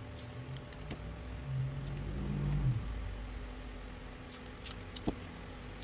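Masking tape and a cut LED strip being handled on a workbench: light clicks and taps, with a low steady hum for about a second near the middle.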